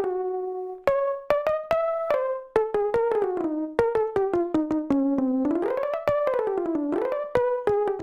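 GarageBand's 'Perfect Mix Piano' sampled piano sound played one note at a time on a touchscreen keyboard: a quick, wandering melody of separate notes, with the pitch sliding down and back up about three quarters of the way through.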